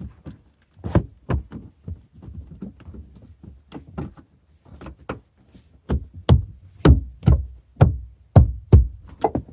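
Hand knocks and thumps on car interior trim as a rubber seal is pressed back into place. A few knocks come early, then a run of strong, low thumps, about two a second, in the last few seconds.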